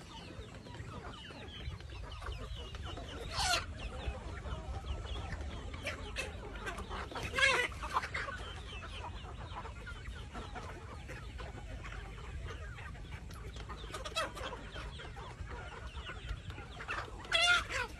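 A flock of chickens clucking and calling, with short louder calls standing out about three and a half seconds in, around seven and a half seconds, and twice near the end.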